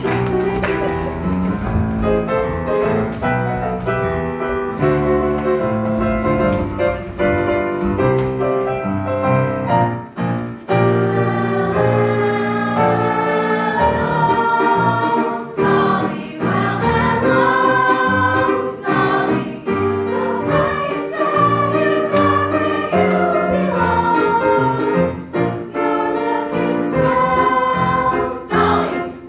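Youth choir singing together over a musical accompaniment.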